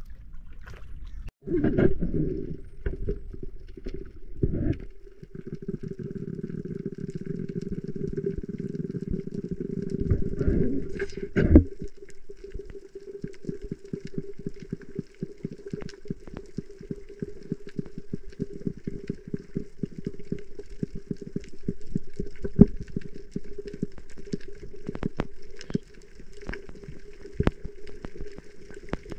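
A motor humming steadily at one pitch, with water gurgling and a dense, irregular crackle of small clicks; louder knocks and splashing in the first few seconds and a sharp knock about eleven seconds in.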